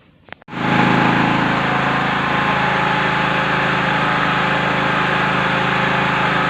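Badja BG3200L petrol generator engine coming in suddenly about half a second in and then running at a steady speed.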